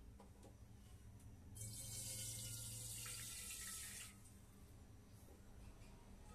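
A water tap runs into a sink for about two and a half seconds in the middle, then shuts off.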